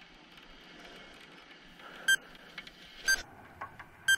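Three short, high beeps about a second apart, over faint steady background noise.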